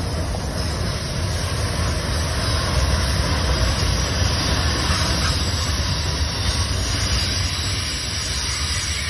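Freight cars of a Norfolk Southern manifest train rolling past, their wheels on the rails making a steady low rumble with a rushing noise over it.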